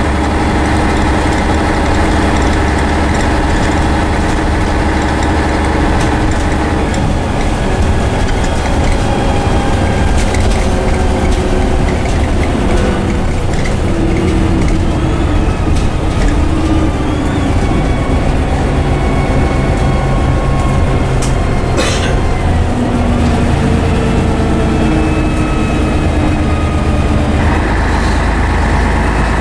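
Interior sound of a Scania N113CRB bus with a Voith automatic gearbox on the move: its rear-mounted six-cylinder diesel engine and drivetrain run steadily, their tones rising and falling as the bus changes speed. A single sharp knock comes partway through.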